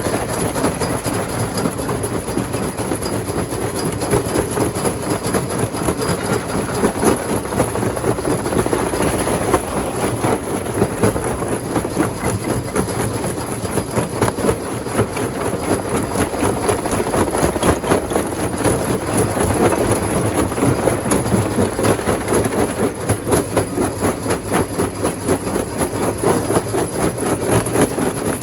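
Rock crusher running: a steady machine noise with a dense, fast rattle.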